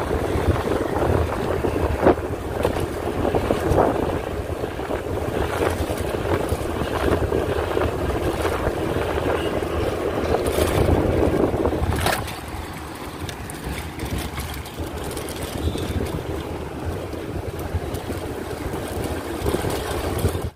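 Wind rushing over a bicycle-mounted phone's microphone, with road rumble and a few short knocks from bumps while riding. The rushing eases about twelve seconds in.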